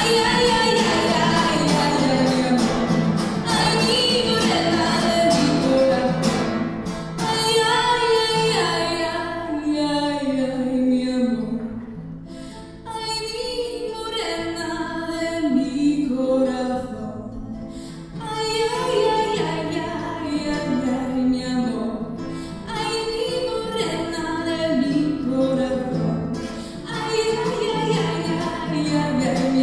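A woman singing into a microphone, accompanied by two acoustic guitars. The guitars strum hard at first, then drop back under the voice.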